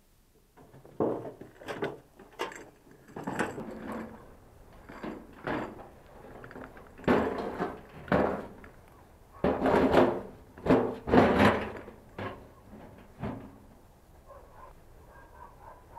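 Steel wheelbarrow carrying a granite block, knocking and rattling as it is pushed over rough ground and then tipped up to dump the stone, the heaviest clatter about ten to twelve seconds in.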